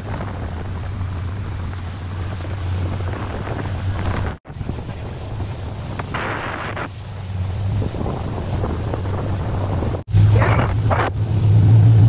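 A small fishing boat's motor runs steadily underway, with wind buffeting the microphone and water rushing past the hull. The sound cuts out abruptly twice, and after the second break the motor's hum is louder.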